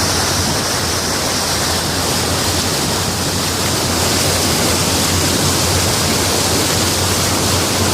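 Floodwater rushing and splashing against a four-wheel-drive vehicle as it wades through deep water, steady throughout, with a low drone from the engine underneath.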